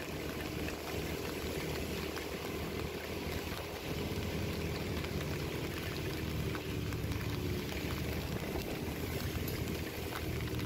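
Heavy rain heard from a moving motorbike: a steady hiss of rain and tyres on the wet road, with the motorbike's low hum beneath.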